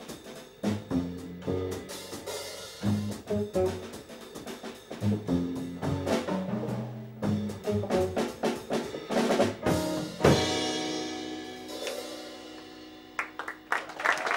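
Jazz trio of upright bass, drum kit and electric guitar playing the closing bars of a tune. The band ends on a loud final hit about ten seconds in, which rings out and fades away.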